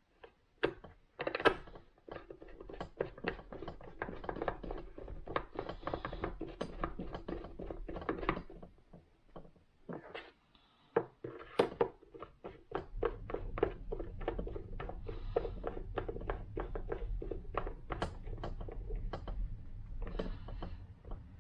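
Screwdriver driving screws into deep holes in the jump starter's case: rapid runs of clicks as it turns, one run in the first half and a second after a short pause.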